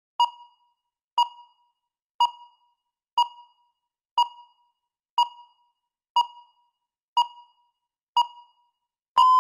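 Electronic countdown timer beeping off the last seconds: nine short pings, one a second, each fading fast, then a long steady beep near the end that signals the time is up.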